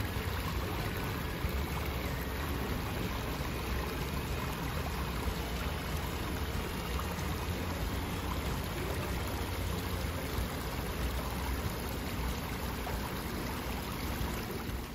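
Jet airliner heard from inside the cabin: a steady rushing noise with a strong low rumble from the engines and airflow.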